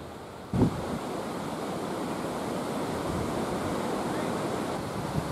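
Wind buffeting the camera microphone: a steady rushing noise that jumps louder with a low thump about half a second in.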